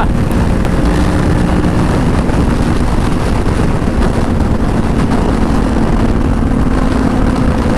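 2020 Honda CBR500R's 471 cc parallel-twin engine running steadily at highway cruising speed, under heavy wind rush on the microphone. The engine note steps down slightly about two seconds in.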